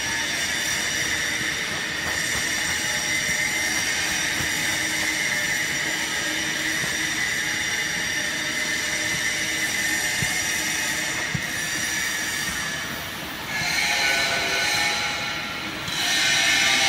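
Horizontal wood-chip bagging baler running: steady machine noise with a high-pitched whine, swelling louder twice near the end.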